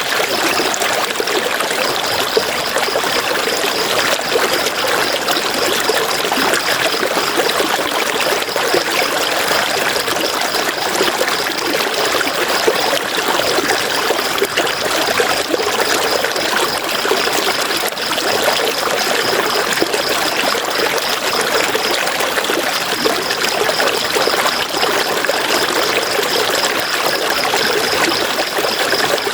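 River water rushing and splashing over rocks in a steady, unbroken stream.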